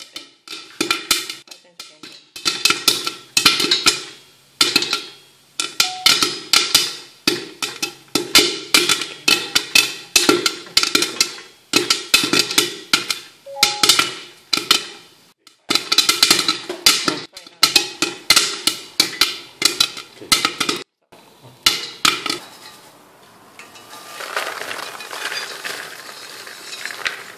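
Corn kernels popping in a covered stainless steel pot with a glass lid: a dense run of sharp pops in quick clusters for about twenty seconds. Near the end, popped corn pours from the pot into a plastic bowl with a soft rustling patter.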